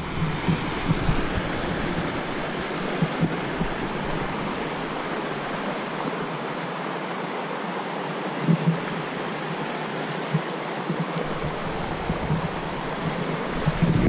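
Steady rush of a mountain beck tumbling over rocks at the head of Cautley Spout waterfall.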